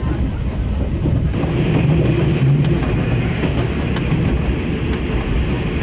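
Inside a diesel train running at speed: a steady low engine drone and wheels rumbling on the rails, with a hiss of running noise that grows a little louder about a second in.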